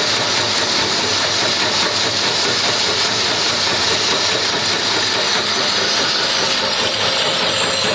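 Electric peanut chopping machine running steadily, chopping peanuts into granules for martabak and donut topping that pour down its steel chute. The noise is even and unbroken, strongest in the upper range.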